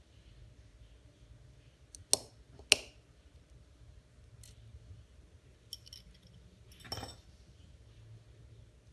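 Small metal watchmaker's tools and watch parts clicking and clinking on a hard work surface during disassembly of a mechanical watch movement: two sharp clicks a little over two seconds in, then a lighter click with a short high ring and, around seven seconds in, a longer ringing clink.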